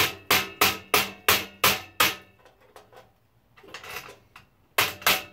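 Hammer striking a wood chisel at a steady beat of about three blows a second, each a sharp ringing tap, chipping material off a clamped part. The blows stop about two seconds in and pick up again near the end.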